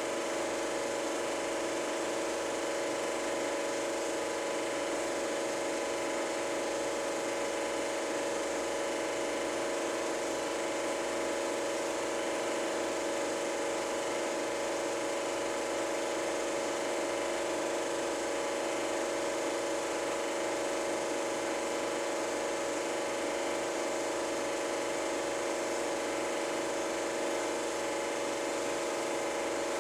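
Super 8 film projector running: a steady mechanical whir with a constant hum.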